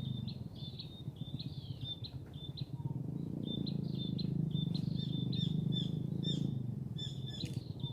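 A bird calling in a rapid series of short, high chirps, about three or four a second, some sliding downward, over a steady low rumble.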